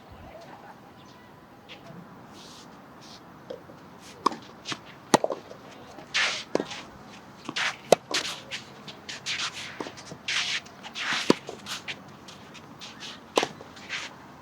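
Tennis rally: a ball struck by rackets every two to three seconds with sharp pops, and shoes scuffing and shuffling on the court between shots.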